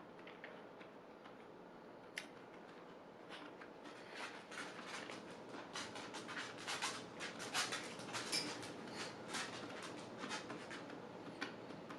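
Close-up eating sounds of a person chewing: a run of quick small clicks that starts about three and a half seconds in and gets busier in the middle, after a single click about two seconds in.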